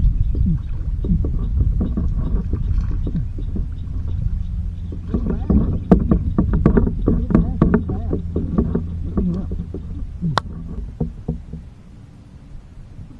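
Water splashing and sloshing at the side of a small boat as a hooked panfish is brought to the hull and landed by hand, most of it about halfway through, with one sharp click near the end. A steady low rumble runs underneath and fades near the end.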